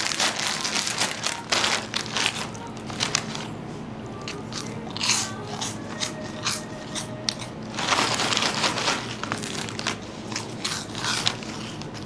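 A plastic bag of Nongshim Banana Kick corn puffs crackling as it is torn open, then the puffs crunched and chewed in bursts.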